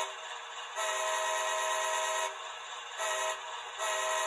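Sound-equipped HO scale GE AC4400CW model locomotive's horn playing through its onboard speaker, a steady multi-note chord. A long blast about a second in, a short one about three seconds in, and another long one near the end: the long-long-short-long grade-crossing signal.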